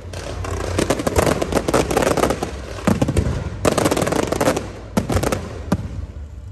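Firecrackers and fireworks going off in rapid crackling volleys, thinning to a few separate bangs near the end.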